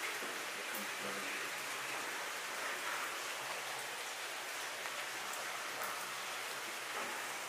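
Steady rushing hiss of flowing water, even and unbroken, with a few faint clicks over it.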